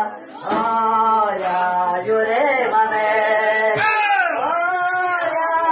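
Several voices, male voices strongest, singing a devotional ponto together. A fast, even high rattle keeps time behind them and comes up more strongly near the end.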